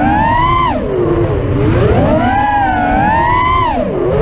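Brushless motors and props of a 5-inch FPV racing quadcopter (Stout motors, Ethix P3 props) whining as the pilot works the throttle: the pitch rises and falls steadily, dropping sharply about a second in and again near the end when the throttle is chopped, with a rushing of air underneath.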